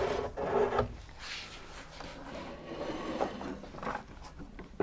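Handling noise: a router being lifted off a shelf and carried, not running. There is faint rustling and a few light knocks, one at about three seconds and one near the end.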